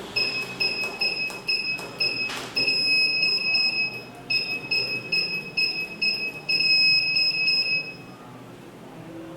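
ATSS Active 207 burglar alarm keypad beeping at each key press: a quick run of short high beeps, a few held slightly longer, with the clicks of the soft-touch keys, as the six-digit zone passwords are keyed in to deactivate the zones. There is a brief pause about four seconds in, and the beeping stops about eight seconds in.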